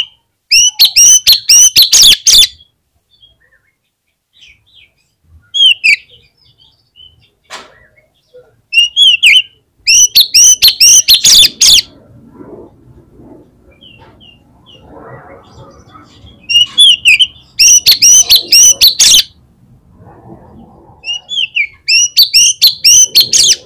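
Oriental magpie-robin (kacer) in full song: loud bursts of rapid, sweeping whistled notes, about five bouts broken by short pauses.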